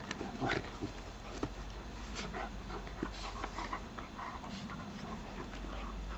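An adult dog and a puppy play-fighting: a string of short, scattered dog noises with a few sharp clicks and scuffles.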